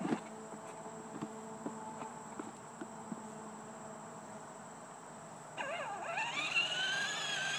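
Small electric motor and gears of a battery-powered Buzz Lightyear ride-on toy whining as it drives. A little over five seconds in, a louder whine cuts in, dips and climbs in pitch, then holds steady.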